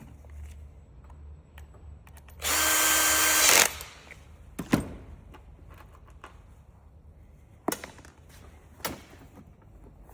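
A power screwdriver runs once, steadily, for about a second, driving a screw back in. Three short sharp clicks or knocks follow, spread over the next few seconds.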